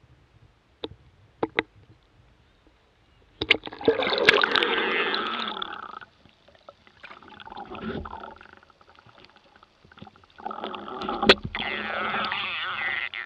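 Underwater sound from a camera dipped into shallow sea water: a few sharp clicks, then from about three and a half seconds in a loud rush of sloshing and bubbling water that dies down, and a second stretch of loud, muffled water noise from about ten and a half seconds in while the snorkeler swims.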